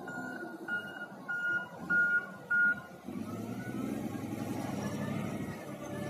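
Wheel loader with a log grapple: its reversing alarm beeps about twice a second, five beeps, then stops about halfway through as the diesel engine revs up and runs louder while the machine drives off.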